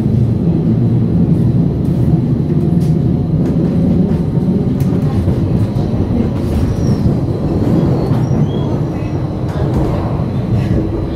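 Stadler FLIRT electric multiple unit (SAD ETR 170) running along the line: a steady, even rumble of wheels on rail and running gear. A few brief high squeaks come in the middle, and a steady hum joins near the end.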